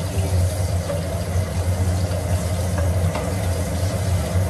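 Kitchen chimney (range hood) exhaust fan running with a steady low hum over the stove, with a few faint clinks of a utensil in the pot.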